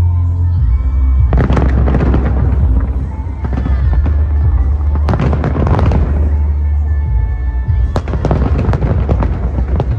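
Aerial fireworks shells bursting and crackling in dense volleys, in waves that swell about a second and a half in, at about five seconds and again at about eight seconds. Music with a deep bass plays underneath.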